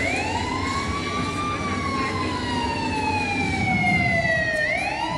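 A siren wailing: its pitch sweeps up quickly, falls slowly over about four seconds, then sweeps up again near the end.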